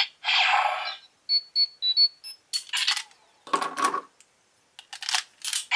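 Electronic sound effects from a Power Rangers Super Megaforce morpher toy's speaker as a Ranger Key is put in: noisy bursts, a quick run of short high beeps about a second in, then more bursts and a lower buzzing tone just before four seconds.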